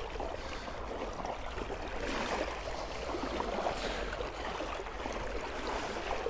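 River water sloshing and splashing steadily around a wading person and a dog swimming alongside on a lead.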